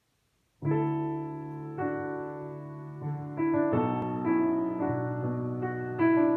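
A grand piano starts playing about half a second in: a slow solo intro of sustained chords that change about every second.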